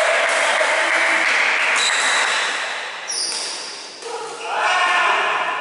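Several voices talking and calling at once on a badminton court between points, with a short high squeak about three seconds in, typical of shoes on the wooden court, and one voice speaking near the end.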